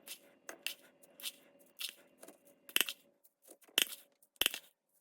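Grated ice going into a halo-halo glass: short crisp crunches and scrapes, about two a second, at an uneven pace.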